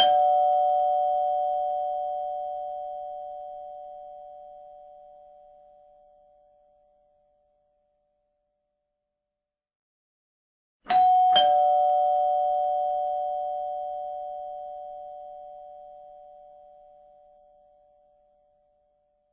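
Two-note doorbell chime, a higher note then a lower one, ding-dong, each note ringing and fading slowly over several seconds. The lower note of one chime sounds at the start, and a full ding-dong follows about eleven seconds in.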